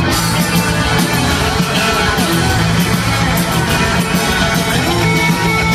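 Live rock band playing at full volume, with electric guitar and drums to the fore.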